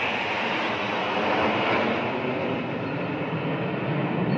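Steady jet roar from a formation of jet aircraft flying past overhead, turning deeper toward the end as the jets move away.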